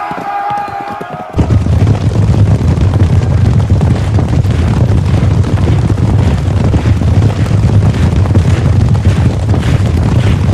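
A crowd of men shouting a war cry, cut off suddenly about a second and a half in by a loud, continuous low rumble with many sharp crackles and clatters through it, typical of a battle-din sound effect.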